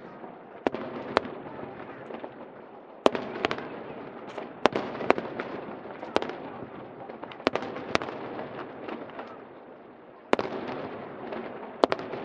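Aerial fireworks bursting: about a dozen sharp bangs at uneven intervals, with a steady crackle between them.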